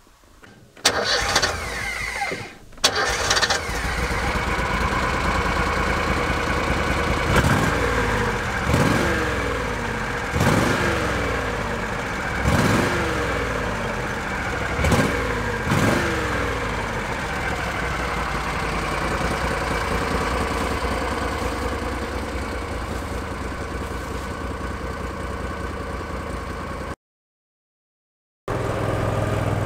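Argo 8x8 amphibious vehicle engine starting about a second in and settling into a steady idle, revved up and back down about six times in quick blips midway; the engine is running a bit rich. The sound cuts off abruptly near the end, and an engine is heard again a moment later.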